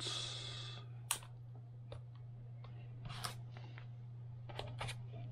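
A few light, sparse clicks and taps from hands and a plastic pry tool working on an opened MacBook Air's battery and logic board, with a brief scraping hiss at the start. A steady low hum sits underneath.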